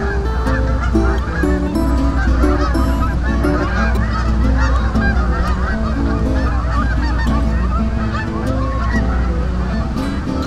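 A flock of Canada geese honking, many short calls overlapping continuously, over a steady low rumble.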